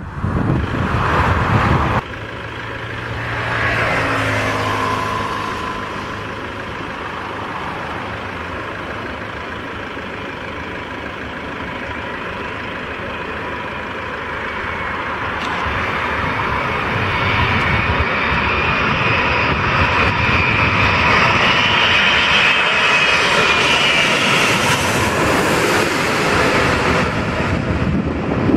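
Airbus A380 jet engines. A departing A380's rumble cuts off abruptly about two seconds in. Then the whine and rumble of a landing A380's four turbofans grow steadily louder as it approaches, peaking near the end as it passes overhead.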